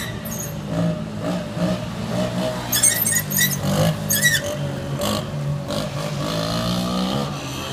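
Quad ATV engine revving and easing off as the four-wheeler rides a wheelie past, with the engine note rising and falling. It is loudest as it goes by, about three to four seconds in.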